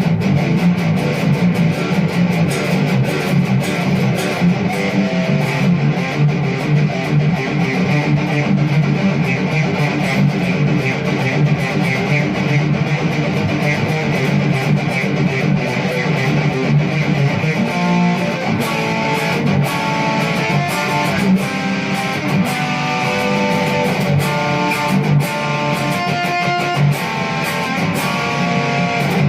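Distorted electric guitar playing fast picked riffs and single-note lines, without a pause.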